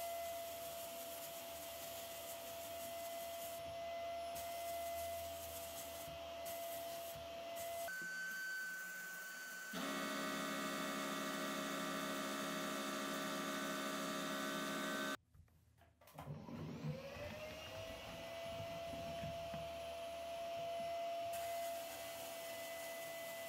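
Sandblasting cabinet in use: a steady hiss of air and abrasive from the blast gun, with a whistling tone over it that shifts in pitch. About two-thirds of the way through the blast stops for about a second, then comes back with the whistle rising in pitch.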